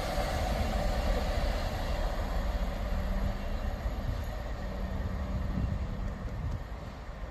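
Class 66 diesel-electric locomotive's two-stroke diesel engine running low and steady as the locomotive moves away down the line, fading gradually as it recedes.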